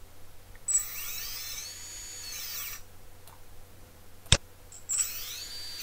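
Brushless quadcopter motors spun up one at a time without propellers: a high whine rises, holds for about a second and falls away. A sharp click follows, then a second motor's whine rises near the end.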